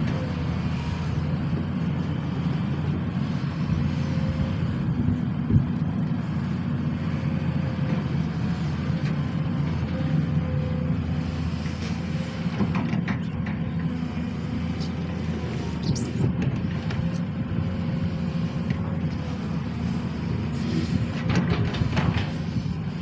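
SANY SY215C hydraulic excavator's diesel engine running steadily, with a sharp knock about five seconds in and a few fainter knocks later.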